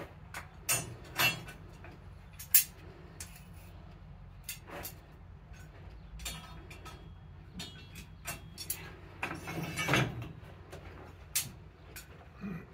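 Steel blacksmith's tongs clinking and rattling against each other in the tong rack: scattered sharp metallic clinks, with a longer rattle about nine to ten seconds in.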